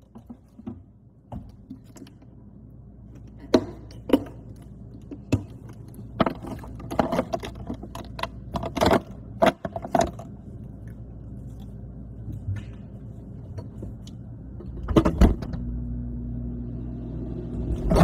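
Short knocks and clicks of jars and plastic food containers being handled on a fridge shelf. About fifteen seconds in a loud thud as the fridge door shuts, then a steady low hum heard from inside the closed fridge.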